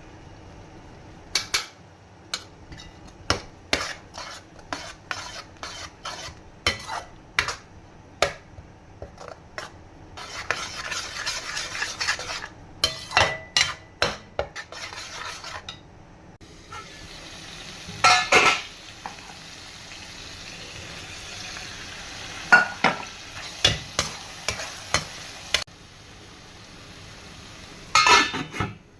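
A utensil tapping and scraping against a pan in a run of sharp clicks, with two longer stretches of oil sizzling as food fries, and a few louder knocks of metal on the pan.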